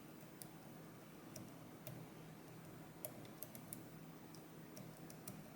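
Faint, irregular small clicks of a lock pick working a key pin inside a Medeco M3 pin-tumbler lock, turning the pin to find its rotation.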